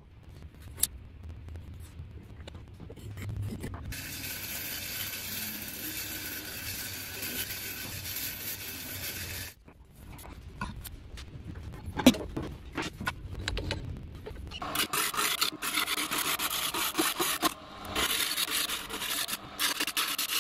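A turning gouge cutting a spinning wooden plate blank on a lathe, a rough scraping hiss that surges and drops with each pass. Earlier a steady hiss from another workshop tool cuts off suddenly, and a single sharp knock comes near the middle.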